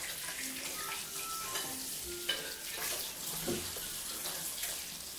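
Butter and water sizzling in a pan on a gas burner as a steady hiss, with a brief clink a little over two seconds in.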